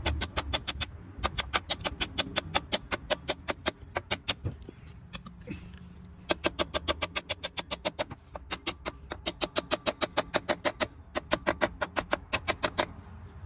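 A hammer taps a new wheel seal into a heavy truck's wheel hub, seating it in the bore. The light metal taps come in a quick, even rhythm of several a second, with a short break about halfway.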